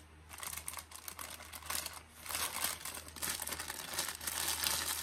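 Clear plastic packaging crinkling and rustling as it is handled, growing louder about halfway through.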